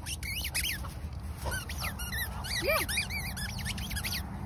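A squeaky ball being chomped in a dog's mouth, giving runs of short, high-pitched squeaks, one lower and longer squeak near the three-second mark, over a steady low rumble.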